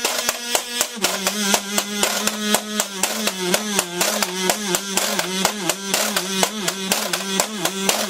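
Kazoo and washboard improvising together. The kazoo buzzes a low note that drops a step about a second in, then repeats with short pitch dips, over a fast, steady rhythm of washboard scrapes and taps.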